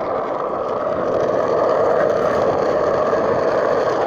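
Skateboard wheels rolling on concrete: a loud, steady rolling noise that grows a little louder after about a second and drops off right at the end.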